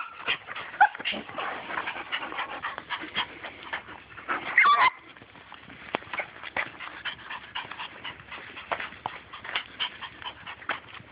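Small dog whining and squealing in short, high, monkey-like cries, with one loud curving squeal about four and a half seconds in, over many quick clicks and scratches. The dog is worked up, wanting to get at a turtle.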